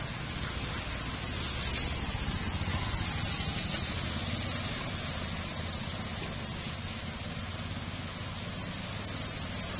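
Steady street noise of vehicles in heavy rain on a waterlogged road: a low engine rumble under a constant hiss of rain and water.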